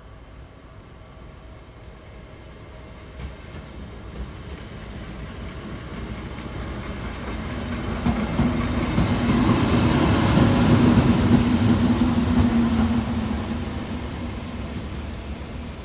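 DB class 295 diesel-hydraulic shunting locomotive passing at slow speed, running light. The drone of its V12 diesel engine grows louder, peaks with a steady low hum about ten to twelve seconds in, then fades as it moves away.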